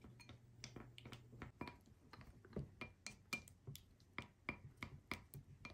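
Wooden chopsticks stirring an olive-oil mixture in a small glass bowl, faintly clicking against the glass a few times a second, some clicks with a short glassy ring.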